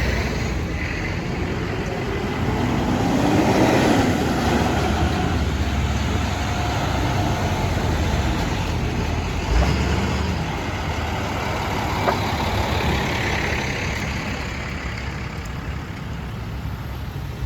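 Truck engines running, swelling in loudness about three to four seconds in, with a short thump about halfway through.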